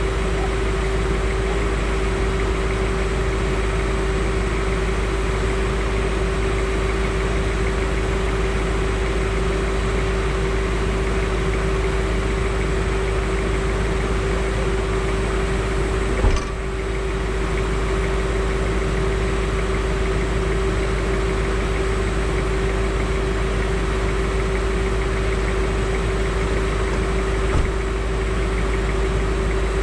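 Land Rover Discovery 2 engine idling steadily, heard close up from under the front bumper, with a constant drone and a steady hum. One sharp knock about halfway through and a smaller one near the end.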